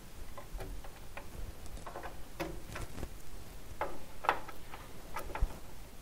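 Irregular light clicks and taps as a RAM stick is handled and pressed into a motherboard memory slot inside a computer case, the strongest clicks about two to five seconds in.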